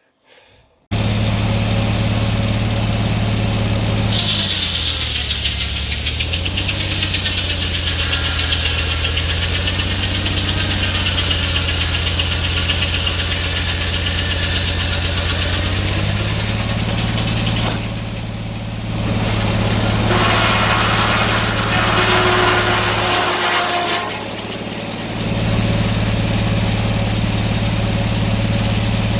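Sawmill engine running. About four seconds in it pulls down in pitch under load while the blade cuts through an oak log with a high hiss, for about twelve seconds. The engine then picks back up, and there is a second, shorter cut later on.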